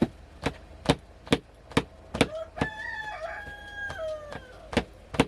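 Steady chopping, one sharp stroke a little over twice a second. A rooster crows once in the middle, a single long call of about two seconds that drops at the end.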